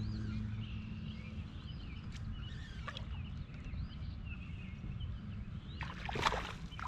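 Birds chirping over a low steady hum; about six seconds in, loud splashing breaks out as a hooked fish thrashes at the water's surface beside the boat.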